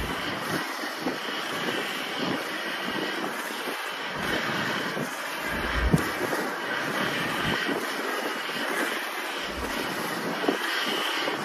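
Steady rushing road and wind noise of travelling at speed along an asphalt road, with a short low thump about six seconds in.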